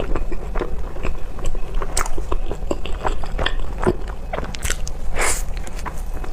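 Close-miked mouth sounds of eating soft bread: bites and wet chewing with many small irregular clicks and smacks, and a brief louder noisy burst about five seconds in.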